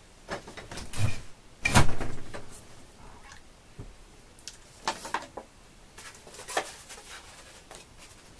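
Handling noises as things are moved and set down: a few sharp knocks and clatters, the loudest about two seconds in, with lighter knocks around the middle and later.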